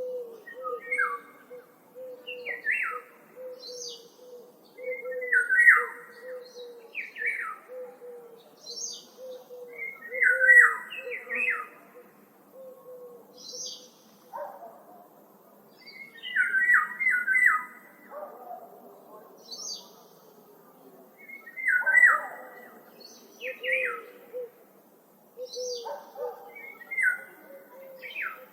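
Woodland birds calling in short, rough chirping phrases that repeat every second or two, over a faint, steadily pulsing low note.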